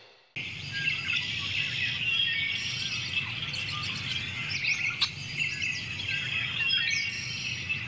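Many small birds chirping and trilling together over a steady low background hum. It comes in suddenly a moment after the start, with a single sharp click about five seconds in.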